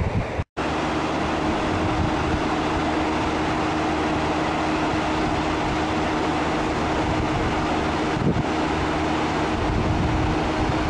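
Steady mechanical hum of a cruise ship's machinery on the open deck, a constant rushing noise with a low droning tone. The sound cuts out for a moment about half a second in, and there is one soft knock near the end.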